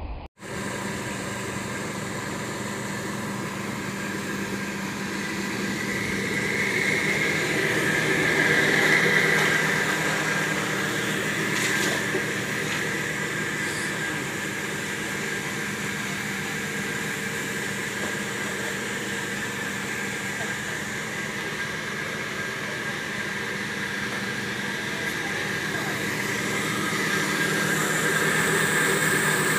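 A motor running steadily with an even, unchanging hum. It grows a little louder about a third of the way in and again near the end.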